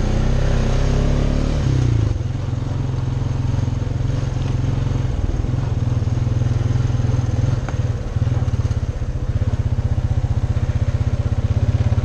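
Honda ATV engine running under way as it is ridden along a dirt trail, a steady, fast-pulsing engine note that dips briefly about two seconds in and again about eight seconds in.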